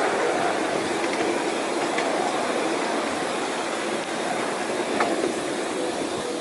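Miniature garden-railway train running along its track, a steady rumble of wheels on rail with a few sharp clicks over the joints.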